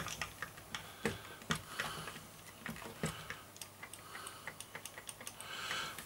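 Atari 2600 Boss joystick clicking irregularly as its stick is worked around by hand, a scatter of short, sharp clicks from the stick and its switches.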